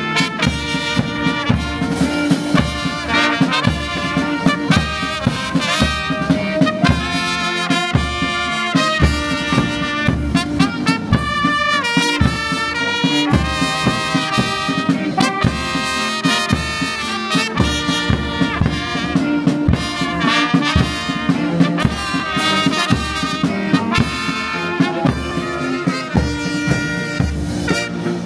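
A brass band playing a march over a steady drum beat. The music breaks off abruptly at the end.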